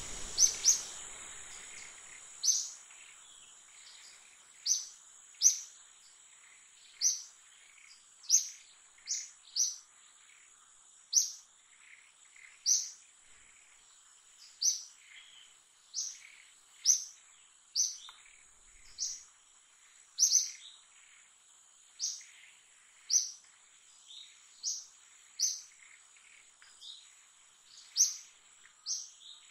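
A bird calling over and over, a short high chirp repeated about every one to two seconds, sometimes in quick pairs, over a steady high-pitched insect drone.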